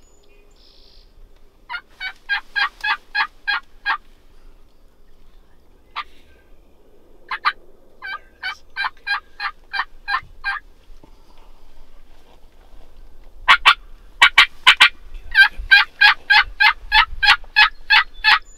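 Turkey yelping: several runs of evenly spaced yelps, each a string of about eight to twelve notes at roughly four a second, with a few sharper, louder notes about three quarters of the way through before the last and longest run.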